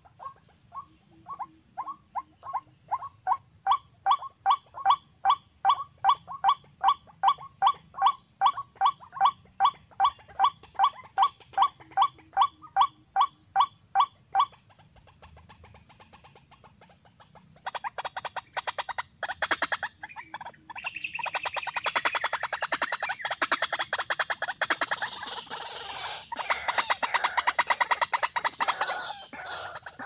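A rail gives a loud call note over and over, about twice a second, for some fourteen seconds. After a short pause it breaks into a fast, harsher run of rapid notes that grows louder.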